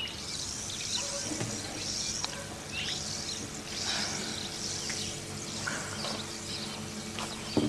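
Birds chirping, short high calls repeated throughout, over a faint steady low hum.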